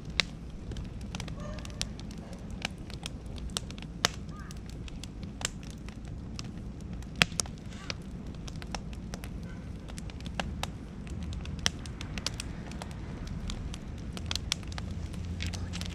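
Beech and oak firewood burning in an open bonfire, crackling with sharp, irregular pops, over a low rumble that swells near the end.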